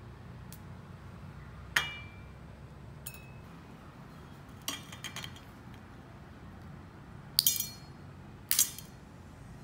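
Candy-coated green grape skewers (tanghulu) tapped and set down on a ceramic plate: about five sharp clinks a second or more apart, the hard sugar shell ringing briefly against the plate, a sign that the candy has set hard.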